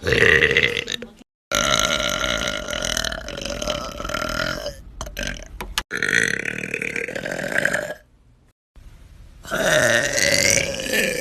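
Women burping: a series of long, drawn-out burps, each lasting one to three seconds, with abrupt silent gaps between them.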